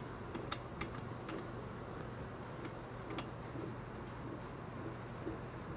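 A few faint, scattered metallic clicks as the knurled steel T-handle on a balance beam's reflex height-adjustment mechanism is turned loose by hand, over a faint steady hum.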